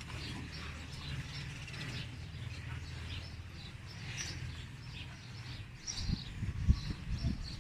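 Small birds chirping repeatedly over a low steady hum, with a few dull thumps near the end.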